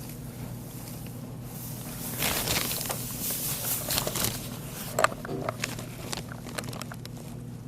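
A bag of freshly crushed malt rustling as it is opened and the grain is handled, loudest for a couple of seconds in the middle, with a sharp click about five seconds in and lighter rustles after; a steady low hum runs underneath.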